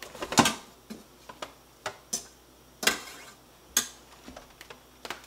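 A spoon stirring beans in a metal pot and knocking against its sides and rim: about a dozen sharp, irregularly spaced clinks and taps.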